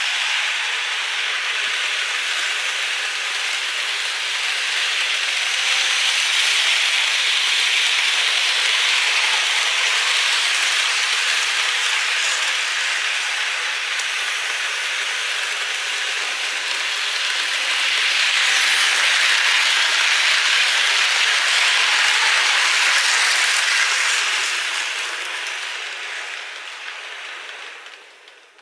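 Märklin model train running on the layout's track: a steady rushing rattle of wheels and motor that swells twice and fades out over the last few seconds.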